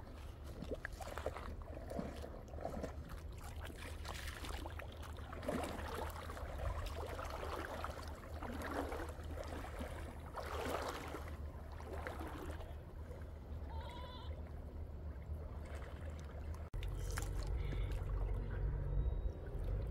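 Water splashing and sloshing around a person's legs as she wades through a shallow river, in irregular surges over a steady low rumble. A short warbling, bleat-like call is heard about fourteen seconds in.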